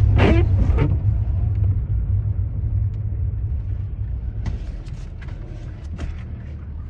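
Low, steady road and engine rumble inside a van's cabin while driving, slowly easing off. A short squeak in the first second and a few faint clicks later on.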